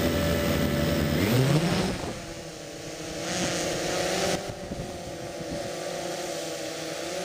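Quadcopter's electric motors and propellers buzzing in flight. The pitch rises about a second in, then settles into a steady, slightly wavering hum.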